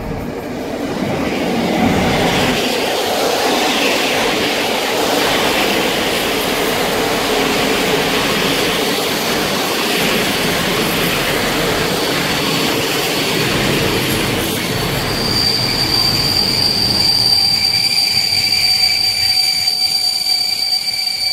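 Passenger coaches hauled by an EP07 electric locomotive running past along the platform, with a steady rumble and clatter of wheels on the rails. About fifteen seconds in, a shrill, steady wheel squeal sets in over the rumble.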